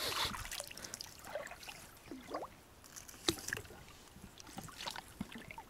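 Water trickling and splashing around a small boat, with scattered knocks, a sharper knock about three seconds in, and a short rising squeak from the boat a little after two seconds in, as fishing traps are handled over the side.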